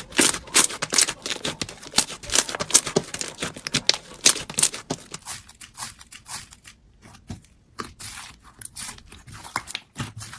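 Slime being squeezed and worked by hand, making a dense run of sharp crackling clicks and pops. The crackling thins out about halfway through, then picks up again.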